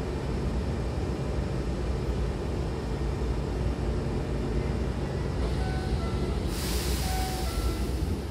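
Steady low hum of a Hankyu electric train standing with its doors open. About five seconds in, a simple melody of short electronic tones starts. About a second later a loud air hiss sounds as the double sliding doors close.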